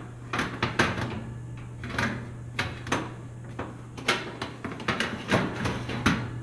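Metal wire oven racks being slid back along the oven's side rails and pushed home: a quick run of metal clatters and knocks.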